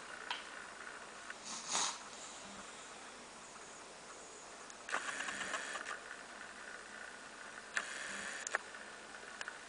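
Faint spoon-feeding noises: a plastic spoon scraping food and touching the baby's mouth, with rustling, in three short bursts about two, five and eight seconds in.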